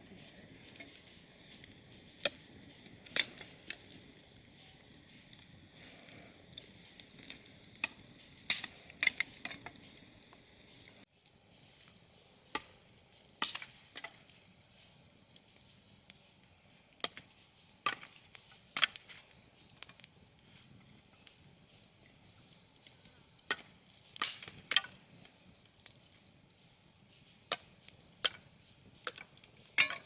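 Open wood fire crackling: irregular sharp pops over a steady faint hiss.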